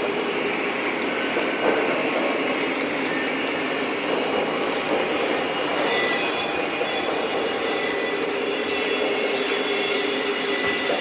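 O scale Lionel model train, a double-stack container train, rolling on three-rail track with a steady rumble of wheels on the rails. A thin high squeal joins about halfway through.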